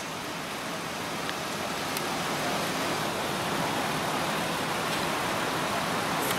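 Steady street traffic noise that slowly grows louder, with a few faint clicks.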